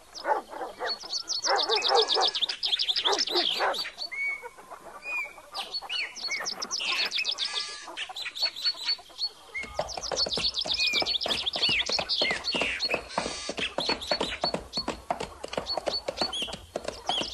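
Many birds chirping and calling at once in a dense, busy chorus of quick high chirps over lower calls. A faint low rumble joins about halfway through.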